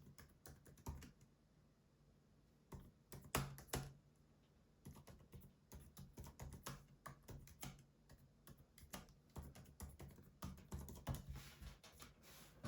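Typing on a 2020 MacBook Air's keyboard: faint, irregular key clicks, with two louder taps about three and a half seconds in, then a steady run of keystrokes through most of the rest.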